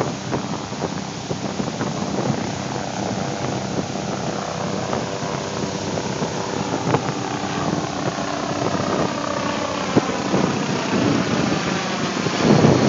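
Pacific Ocean surf on the beach: a steady rushing rumble, with a couple of sharp clicks and a louder swell near the end.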